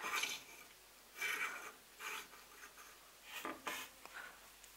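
Faint rubbing and scuffing of hands handling a plastic Transformers action figure while adjusting its arm, in about four brief soft bursts.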